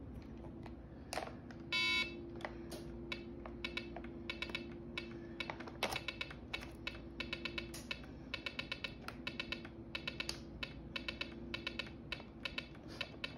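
Small speaker on a home-built snap-together electronic circuit game beeping: one longer tone about two seconds in, then a long run of short electronic beeps at about three a second, over a steady low hum.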